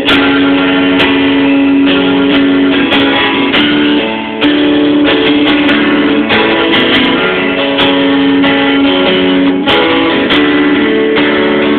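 Guitar strumming chords steadily, with a brief drop in level about four seconds in as the chord changes.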